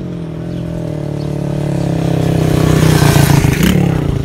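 125 cc dirt bike engine running at a steady pitch, getting steadily louder until it peaks about three seconds in.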